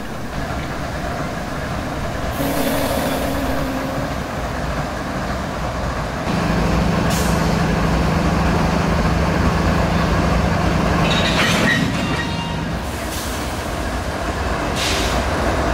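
GE Evolution-series diesel locomotives (an ES44DC leading) running at low speed as they close up to couple onto a freight car; the engine hum grows louder about six seconds in and eases back near thirteen seconds, with a few brief hisses of air.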